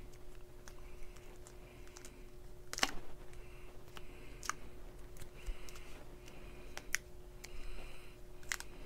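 Handling noise from Loctite Fuse Wrap tape being peeled from its clear plastic backing film, stretched and wrapped around a plastic thumb ring: irregular light clicks and soft crinkles, the sharpest about three seconds in. A faint steady hum lies under it.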